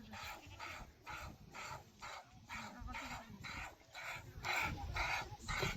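Dog panting rapidly, a steady rhythm of about three breaths a second.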